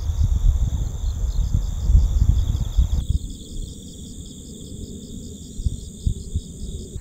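Wind buffeting the microphone in low gusts, with crickets chirping in a rapid, even pulsing rhythm over a steady high insect trill. The wind eases about three seconds in while the crickets go on.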